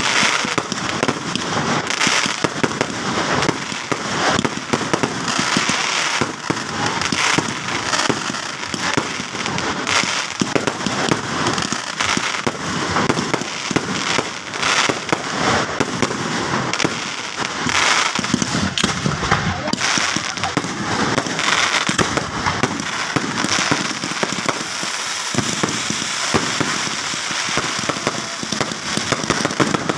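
Fireworks going off in an unbroken barrage: many bangs in quick succession over a steady crackle and hiss from fountains and bursting shells.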